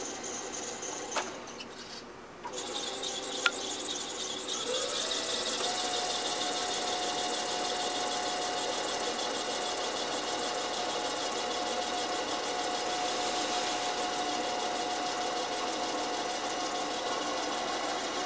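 Welding positioner's electric drive motor and gearbox turning its table. After a couple of sharp clicks the motor starts, its whine rises in pitch, then it runs on at a steady pitch.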